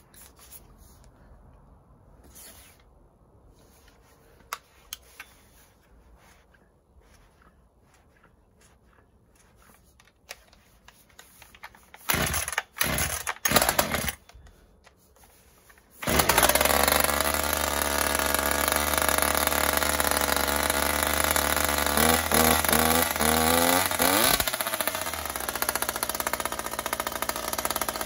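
Small two-stroke petrol chainsaw with an aftermarket expansion-chamber exhaust being cold-started: a dozen seconds of quiet handling clicks, a few loud pulls on the starter cord, then about sixteen seconds in the engine catches and runs with a dirt-bike-like note. It is blipped up and down a few times about two-thirds of the way through, then settles back to a steady run.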